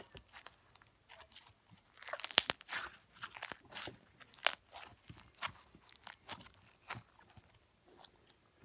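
Teal fishbowl slime being squeezed and kneaded by hand, making a run of irregular sharp clicks and pops.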